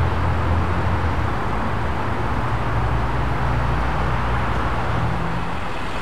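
Construction machinery running steadily: a low engine drone under a constant hiss, with no breaks or impacts.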